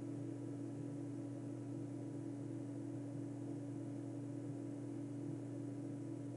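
A low, steady hum of two held tones with a faint hiss underneath, unchanging throughout.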